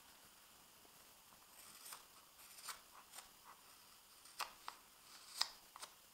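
Carving knife slicing thin shavings off a fresh maple spoon: a string of about eight short, crisp cuts at uneven intervals, starting about two seconds in.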